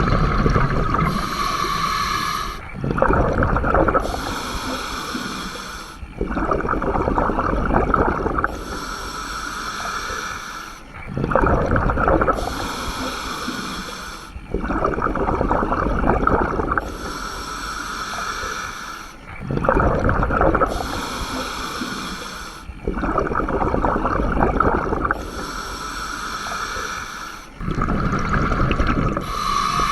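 Scuba diver breathing through a regulator: a hissing inhale alternating with a low bubbling exhale, about one breath every four seconds.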